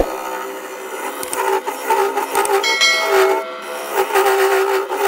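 Wood lathe spinning a mahogany bowl blank with a steady motor hum, while a turning gouge cuts across the face of the wood with a scraping hiss.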